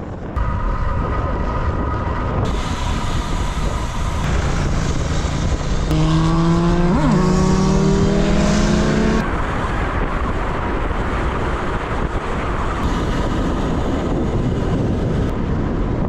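Wind and tyre noise on a bike-mounted action camera while cycling. A motorcycle engine passes from about four to nine seconds in, its pitch climbing as it accelerates, then cuts off abruptly.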